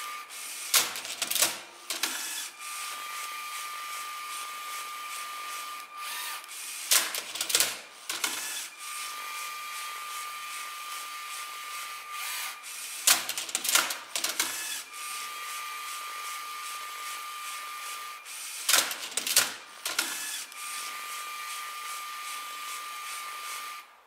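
LEGO SPIKE Prime robot Rubik's Cube solver at work: its motors whir steadily with a thin high tone. About every six seconds, four times, there is a short clatter of plastic clicks and knocks as the mechanism moves the cube.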